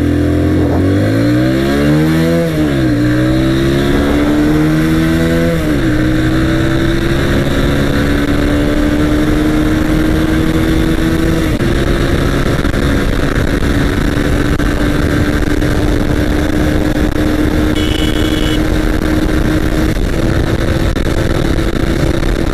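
Hero Honda CBZ Star's 156 cc single-cylinder engine accelerating hard from first gear, with wind rush. The engine note rises steeply and drops at quick gear changes about three and six seconds in, then climbs slowly and steadily in a higher gear as the bike runs up past 100 km/h.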